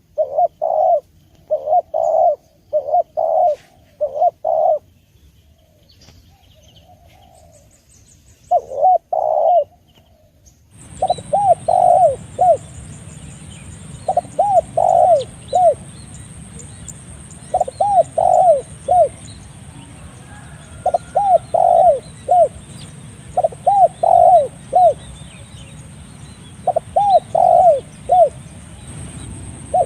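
Spotted dove (tekukur) cooing in repeated short phrases of a few notes each, with a pause of several seconds early on. A bit over a third of the way in, a steady hiss and a faint high whine come in under the calls.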